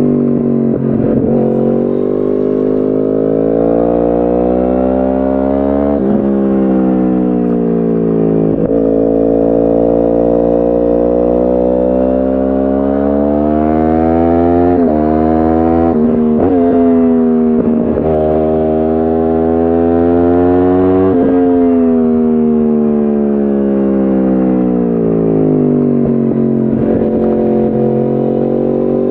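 2010 Yamaha R1's crossplane inline-four, breathing through a decatted Akrapovic exhaust, being ridden hard. Its pitch climbs and falls repeatedly, broken by a string of quick gear changes.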